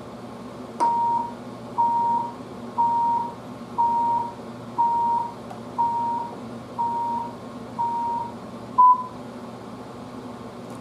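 Electronic beeps at one steady pitch, about one a second: eight evenly spaced half-second beeps, then a shorter, louder final beep about nine seconds in, like the end of a countdown.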